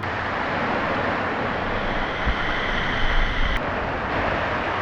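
Rushing water of a mountain stream in a gorge: a steady, fairly loud noise.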